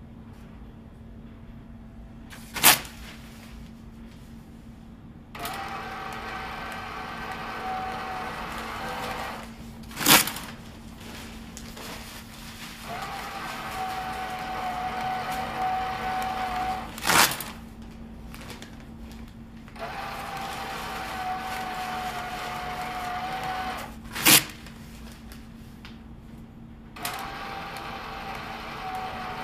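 Georgia-Pacific enMotion automated touchless paper towel dispenser, running on low batteries, cycling over and over. Each cycle has a sharp loud click, a pause of a couple of seconds, then the dispensing motor whining steadily for about four seconds. This happens four times, roughly every seven seconds, over a faint steady hum.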